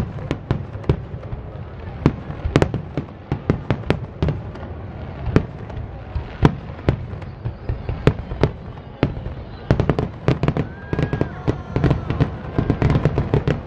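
Aerial firework shells bursting overhead in an irregular series of sharp bangs, one after another, crowding into a dense run of bangs about ten seconds in.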